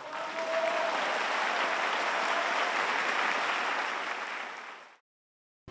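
Concert-hall audience applauding after an orchestral and choral performance ends, a dense even clatter of many hands, fading out about five seconds in.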